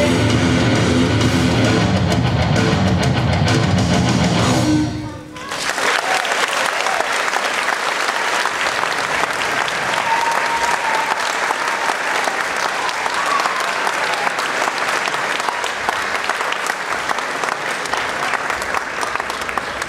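Music stops about five seconds in, followed by an audience applauding steadily, fading a little near the end.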